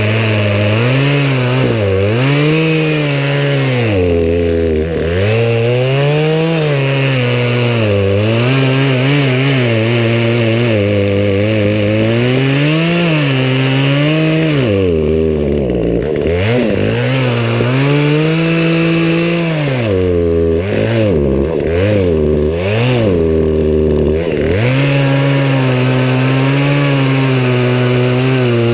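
Poulan Pro two-stroke chainsaw running under load, cutting wood, its engine speed rising and falling again and again. In the second half the revs drop sharply several times, as if the chain is bogging in the cut.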